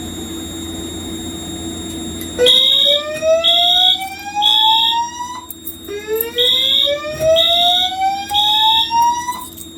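Fire alarm voice-evacuation system going into alarm after a pull station is pulled: after about two seconds of steady hum, a slow rising whoop tone sounds twice, each whoop about three seconds long. Over it come high-pitched beeps in a three-pulse temporal pattern.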